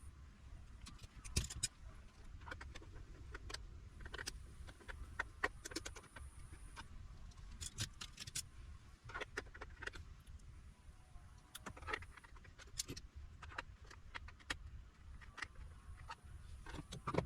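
Scattered small metallic clicks and taps: a triangle-head screwdriver bit being poked into the deep screw recesses of a portable power station's case. The bit is too thick to seat, so the screws cannot be undone.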